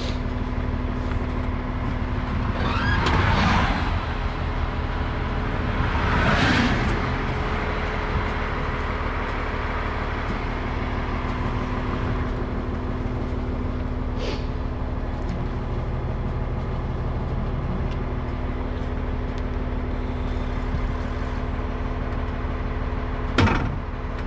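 Heavy wrecker's engine idling steadily, with two rushing hisses a few seconds in and a sharp knock near the end.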